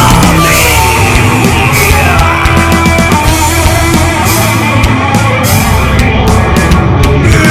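Loud heavy rock music with dense distorted instruments and a steady drive.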